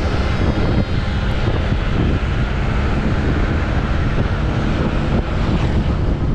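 Wind rushing over a helmet-mounted camera microphone with a motorcycle engine running steadily underneath, riding at an even speed.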